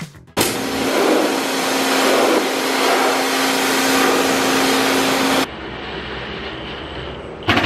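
Power drill running at one steady speed for about five seconds, then stopping suddenly, as when driving self-tapping screws to fix a mud flap to a truck. A sharp click near the end.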